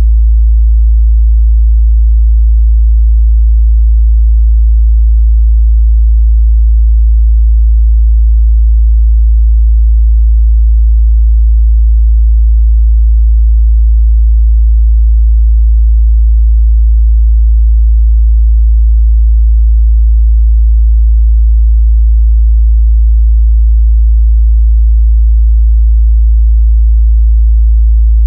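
A steady 55 Hz sine-wave test tone, a loud, unbroken low hum with no change in pitch or level.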